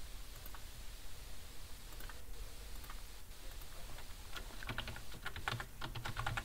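Computer keyboard typing: a few scattered key clicks, then a quick run of keystrokes about two-thirds of the way through.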